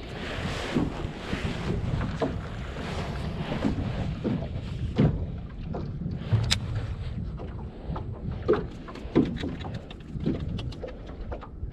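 Wind buffeting the microphone aboard a small boat, with water moving around the hull and scattered short knocks and clicks, more frequent in the second half.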